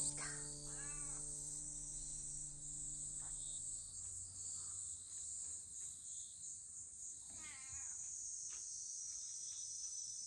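Crows cawing in two short runs, several seconds apart, over a steady high insect drone. Background music fades out in the first few seconds.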